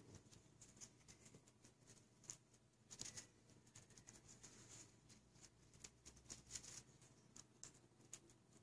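Faint, irregular crunching of a cat chewing dry kibble from a dish, several small clicks a second.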